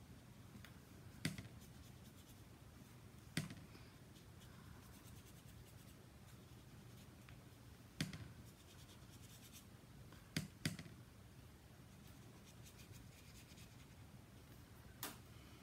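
Quiet room with six light, sharp taps of a water brush on the hard plastic of an ink pad case, two of them close together about two-thirds of the way through. Between the taps comes faint rubbing of the brush on watercolour card.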